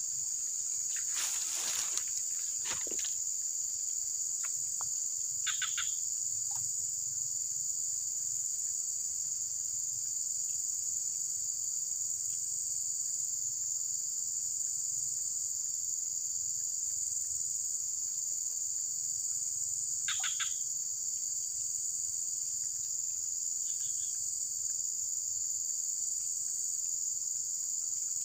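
Steady high-pitched chorus of insects, unbroken throughout. A few sharp knocks come near the start, and short rapid chirps sound about six seconds in and again about twenty seconds in.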